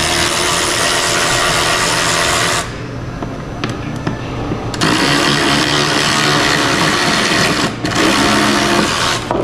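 Handheld power tool running in three bursts: the first stops about two and a half seconds in, the second runs about three seconds, and the last, after a very short break, runs about a second and a half. Quieter clicks and handling noise fill the first pause.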